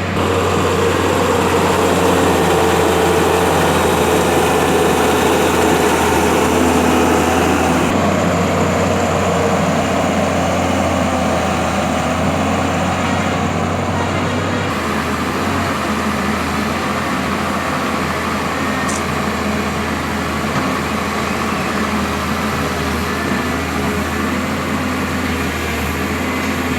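Heavy vehicle engine, a mobile crane's, running steadily, with a constant low hum under it; the sound changes character about 8 and 15 seconds in.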